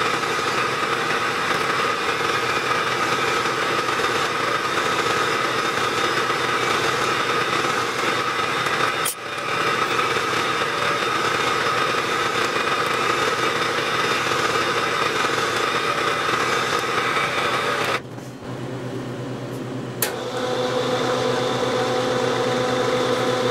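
Milling machine spindle running steadily with a constant hum while drilling. The sound breaks off abruptly about 9 seconds in and again about 18 seconds in, resuming each time, with a sharp click near 20 seconds.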